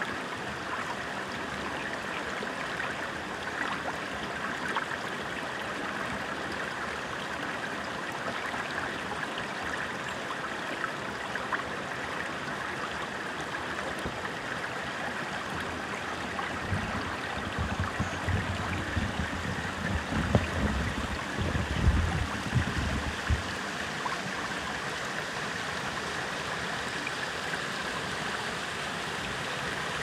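A shallow mountain stream flowing over granite rocks, a steady, gentle rushing of water. Past the halfway mark, a few seconds of low, uneven rumbling rise over it and then fade.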